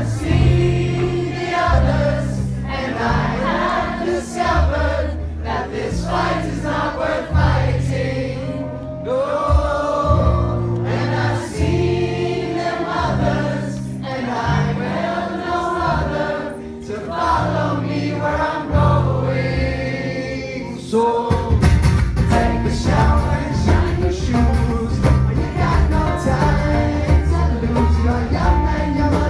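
Live acoustic folk-rock band playing, with banjo, acoustic guitars and upright bass under many voices singing a chorus together. About 21 seconds in, the band comes in fuller and louder.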